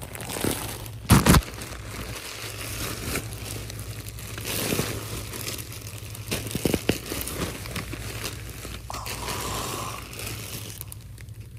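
Plastic packaging crinkling and rustling as it is handled, with two sharp thumps about a second in.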